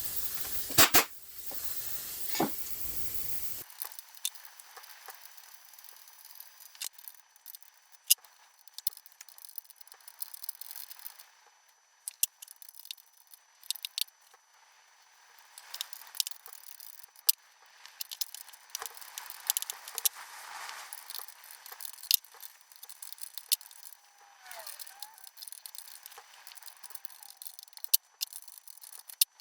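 Hand tools working the nuts on an engine's copper oil pipework: scattered sharp metallic clicks, taps and small rattles of a spanner on the fittings. A steady hiss runs under the first few seconds.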